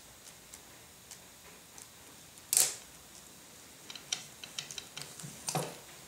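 Light handling clicks and ticks as a marker pen is set down and a small plastic cord clip and bungee cord are picked up and fiddled with. A short, louder rustle comes about two and a half seconds in, then a quick run of small clicks about four to five seconds in.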